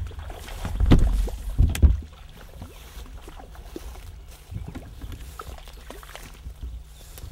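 A hooked trout splashing at the surface of a small stream while being played on a spinning rod: two loud splashes about one and two seconds in, then quieter water movement.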